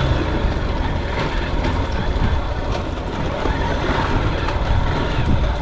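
Motorcycle engine running at low speed over a rough dirt and gravel road, with wind rumble on the microphone.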